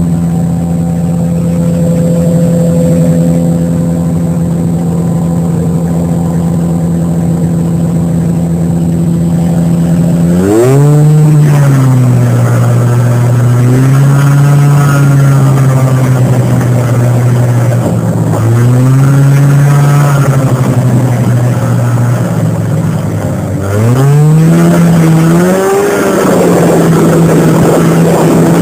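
1989 Arctic Cat Jag 340 snowmobile's two-stroke engine running under way. The note holds steady for about ten seconds, then gets louder, and the pitch rises and falls several times as the throttle is worked on the trail.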